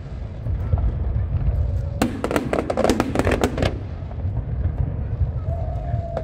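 Aerial fireworks: a rapid cluster of crackling bangs starting about two seconds in and lasting under two seconds, over a continuous low rumble.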